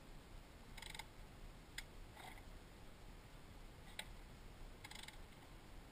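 Near silence with a few faint, short clicks and rustles; the dirt bike's engine is stalled and not running.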